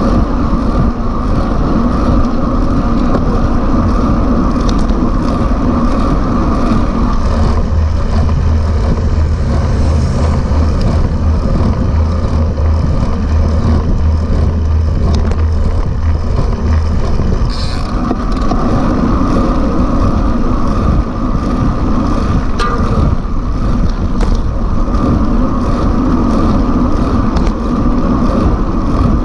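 Steady rush of wind and road noise on a bicycle-mounted action camera's microphone, riding at about 30 to 38 km/h. A deeper low hum comes in from about seven to seventeen seconds in, and there is a short click near eighteen seconds.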